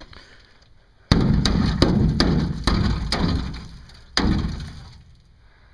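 A hammer beating on the rusted sheet metal around a 2001 Chevy Silverado's wheel well, knocking out rotted metal and old body filler. Six hard blows come about half a second apart from about a second in, then one more a second later. Each blow trails off before the next.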